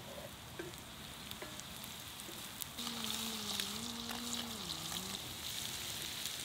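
Diced ribeye steak sizzling in a cast-iron skillet over a wood fire, a steady frying hiss that grows louder about three seconds in, with a few sharp pops.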